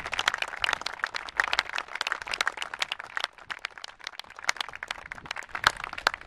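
Audience applauding: a dense patter of separate hand claps that eases slightly partway through, then picks up again.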